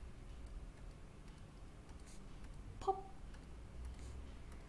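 Faint computer clicks over a steady low room hum, with one short vocal sound about three seconds in.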